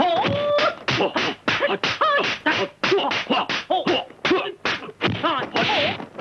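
A rapid string of high-pitched martial-arts fighting cries, yelps and shrieks with sliding pitch, in the style of Bruce Lee's screams, mixed with sharp punch and blow sound effects, about two to three a second. Near the end comes a longer hissing burst.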